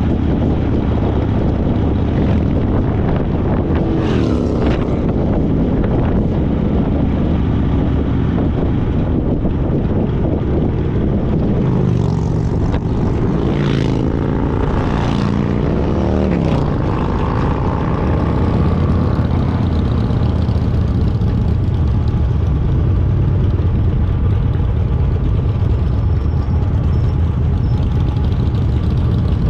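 Harley-Davidson Fat Boy's V-twin engine running at road speed under a steady rush of wind. Its pitch dips and rises a few times partway through.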